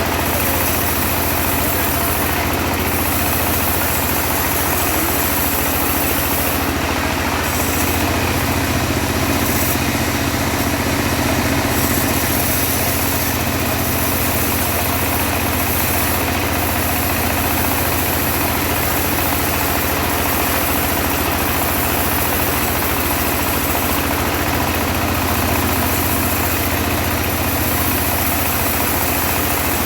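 Engine of a homemade mobile bandsaw mill running steadily, with a constant low hum and a steady hiss over it.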